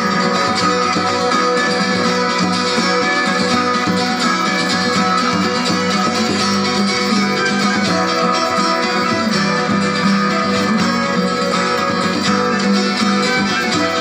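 Live acoustic band playing a folk tune: plucked guitar and other strummed strings with bowed violin, steady and continuous.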